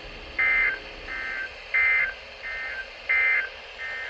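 Emergency Alert System end-of-message data bursts: short, harsh two-tone digital squawks, six in quick succession about every 0.7 s, alternating louder and quieter, signalling that the warning is over.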